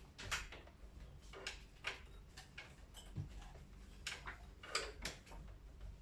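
Light plastic clicks and taps from hands working at the open indoor unit of a split air conditioner, about seven at irregular intervals, over a low steady hum.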